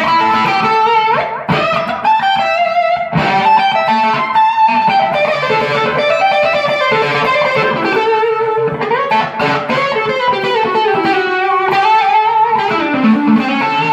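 Stratocaster electric guitar with Jobe hybrid single-coil pickups, on the middle pickup (selector position 3), played through a Keeley D&M Drive pedal with a little crunch. It picks blues-rock licks with string bends.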